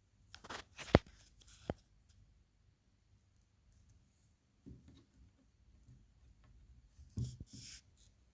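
Handling noises close to the microphone: rustling and clicks, a sharp tap about a second in, and another short burst of rustling near the end.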